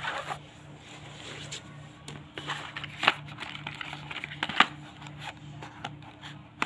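A small cardboard box and a plastic folding phone stand being handled on a wooden floor: rustling and scraping with scattered light taps, two sharper knocks about three and four and a half seconds in.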